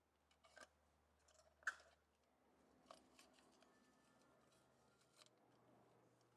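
Near silence with a few faint, sharp clicks and taps, the loudest about a second and a half in.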